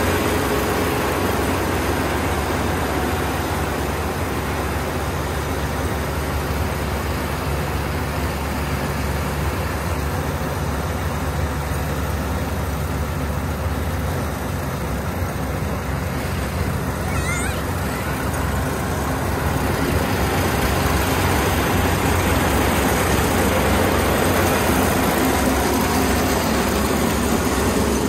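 Kubota ER470 combine harvester running steadily while cutting rice: a continuous low diesel engine drone mixed with the clatter of its cutting and threshing machinery. It gets a little quieter about halfway through as the machine moves off, and louder again toward the end as it comes close.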